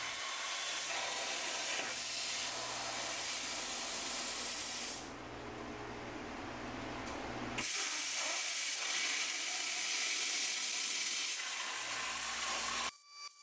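Cut50L plasma cutter's torch hissing steadily as it cuts on a CNC table. The hiss weakens for about two and a half seconds around five seconds in, comes back, and stops abruptly near the end. The torch is running on a badly worn electrode, which the owner puts down to moisture in the compressed air.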